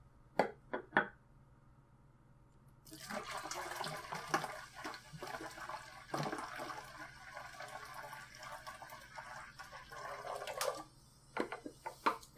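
Soda poured from a glass bottle into a plastic jug, splashing for about eight seconds and stopping abruptly. A few quick knocks from handling the bottles come before the pour and again near the end.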